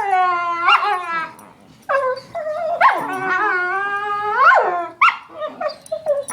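A dog making drawn-out, wavering vocal calls: one long call sliding down in pitch, a second longer one after a short pause, then a few short calls near the end.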